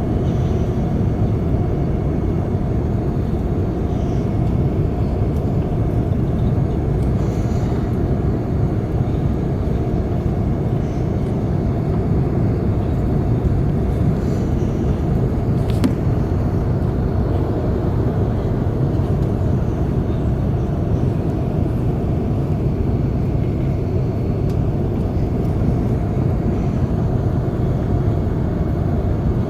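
Steady low cabin noise inside an Airbus A380-800 on final approach: airflow and engine noise heard from the upper deck. There is one short click about halfway through.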